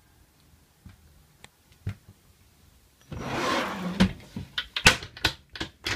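A cabinet drawer slides open on its runners for about a second, followed by a run of sharp clicks and knocks as the cabinetry is handled. The first few seconds hold only a few faint ticks.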